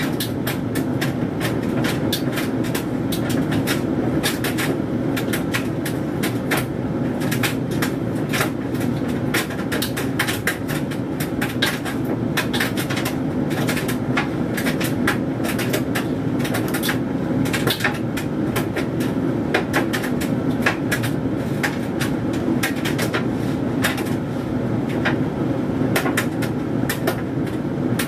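Hoover Dynamic Mega 10kg condenser tumble dryer running: a steady motor and fan hum, with irregular clicks and knocks from the load of synthetic clothes tumbling in the drum.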